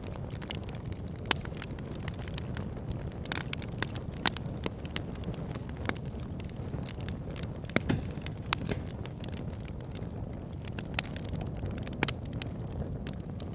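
Wood fire burning in a fireplace: a steady low rumble of the flames with frequent irregular sharp crackles and pops from the burning logs.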